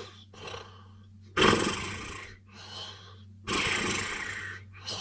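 A person snoring loudly: a harsh rasping snore about every two seconds, with a softer breath between each one.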